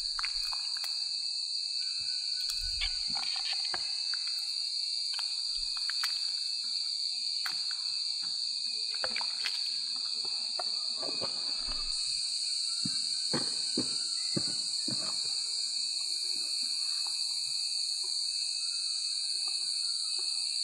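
A steady, high insect drone from the forest, thickening with a second, higher layer about halfway through. Over it come irregular clinks and scrapes of a metal ladle against a camping pot and a metal cup as soup is ladled out, busiest in the middle.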